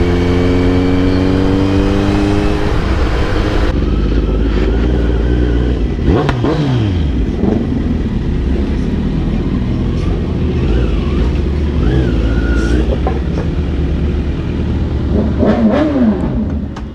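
Sport motorcycle engine running steadily, heard close through a helmet mic. It then rumbles at low speed, with a falling rev about six seconds in and a short rise-and-fall rev near the end.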